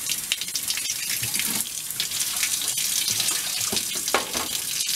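Faucet running a steady stream of hot water, splashing into a mug and the sink below.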